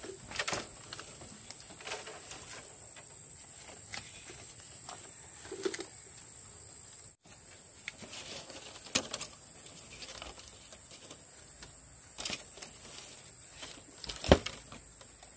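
Scattered clicks and knocks of bamboo poles and thin wire being handled as a bamboo frame is bound together with wire, with one sharp knock near the end. A steady high-pitched whine runs underneath.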